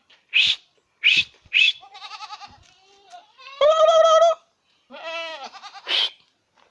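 Several goats bleating one after another: a few short, high calls, a wavering one, and a longer, loud bleat about four seconds in. The herd is calling to be fed.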